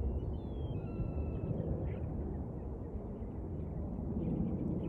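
Open-air ambience with a steady low rumble, and a few short whistled bird calls during the first second and a half. Faint chirps come in near the end.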